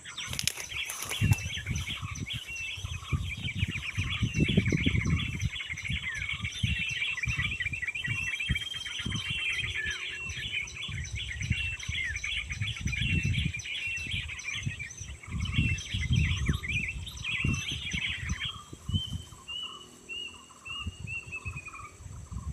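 Small songbirds chirping and twittering rapidly, over a steadily repeating lower call note. The dense chatter stops about eighteen seconds in and gives way to a short run of notes falling in pitch. Low rumbling noise comes and goes underneath.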